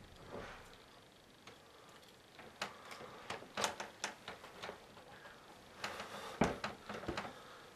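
Faint rustling with a scatter of soft, irregular knocks and clicks, most of them in the second half, from a person in a fursuit moving about on a bed.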